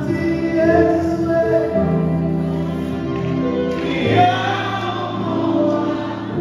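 Live gospel worship music: a man sings into a microphone over sustained keyboard accompaniment, with backing singers joining in. The voices swell about four seconds in.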